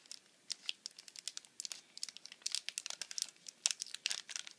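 Wrapping on a bar of soap crinkling and tearing as it is peeled open by hand: a dense, irregular run of sharp crackles that grows busier in the second half.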